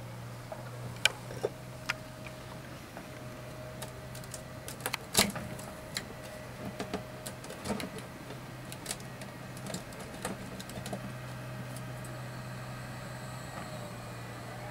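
Gloved hands handling the wooden doors and metal turn-button latches of hive compartments in a bee house: scattered clicks and knocks, the loudest about five seconds in, over a steady low hum.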